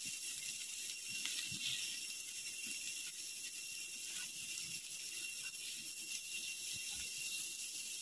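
Squid, shrimp and beef sizzling on a hot griddle pan over a camping gas stove, a steady hiss, with a few faint clicks of metal tongs against the pan.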